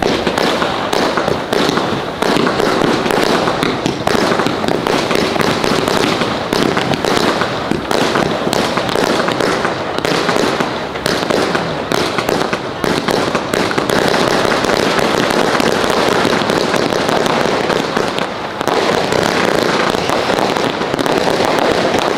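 Fireworks display: a dense, continuous barrage of bangs and crackling, easing briefly about eighteen seconds in before picking up again.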